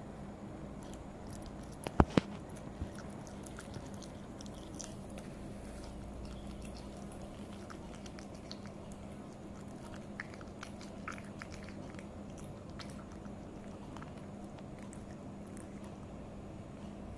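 Cat chewing and biting raw chicken breast, with scattered small clicks and two sharp clicks about two seconds in, over a steady low hum.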